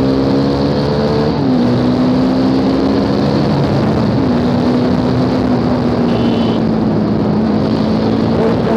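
Modified Bajaj Dominar 400's single-cylinder engine running under way, its pitch creeping up and then stepping down twice, about one and a half and four seconds in, over a steady rush of wind noise.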